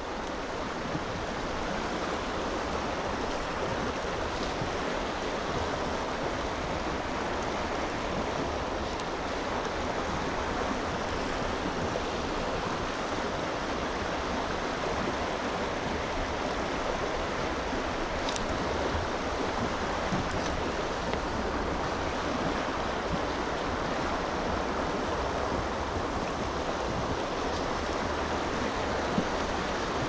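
Mountain stream flowing over a riffle: a steady, even rush of running water.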